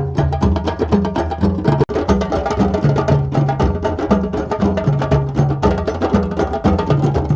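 Drums playing a fast, dense rhythm over a repeating low two-note pattern, with a momentary break about two seconds in.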